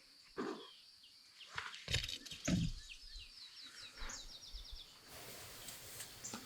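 A songbird singing a quick trill of about ten high repeated notes, lasting about a second, over a quiet rural background. Around it are a few soft rustles and knocks close to the microphone, the loudest about two seconds in.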